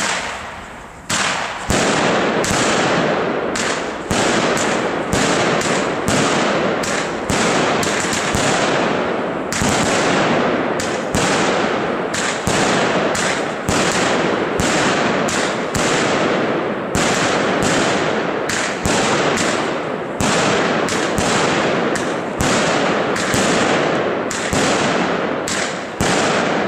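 Multi-shot aerial firework firing burning stars upward in rapid succession, about one to two shots a second. Each shot is a sharp pop followed by a rush of noise that fades.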